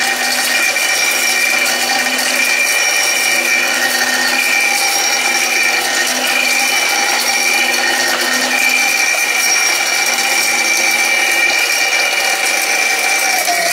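Electric mixer grinder running flat out, grinding whole dried turmeric into fine powder: a loud, steady motor whine over the grinding. Right at the end the motor begins to slow down.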